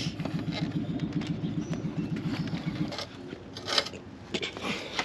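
An engine idling with a rapid, even pulse, which cuts off about three seconds in. Then come a few scattered knocks and clicks, the sharpest just before the four-second mark.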